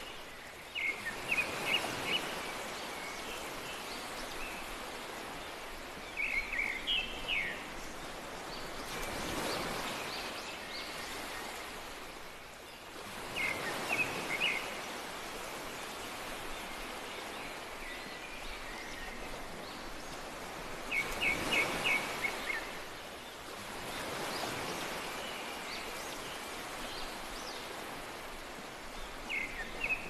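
Surf hissing and swelling as waves wash in, with a songbird singing short phrases of quick chirps every several seconds.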